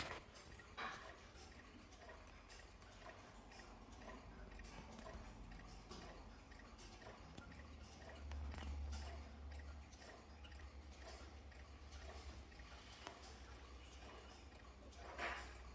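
Near silence: a faint low rumble with scattered small clicks and taps.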